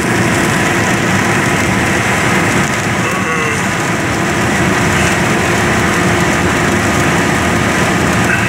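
Steady, loud rumbling noise of a running vehicle, even throughout, with a brief faint sliding tone about three seconds in.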